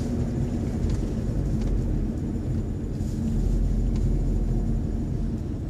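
Steady low engine and road rumble inside the cabin of a moving car, with a faint constant hum.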